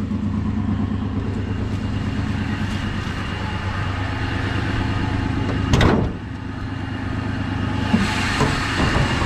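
Dodge 318 small-block V8 idling steadily and smoothly, with its misfire cured. About six seconds in comes a single sharp knock.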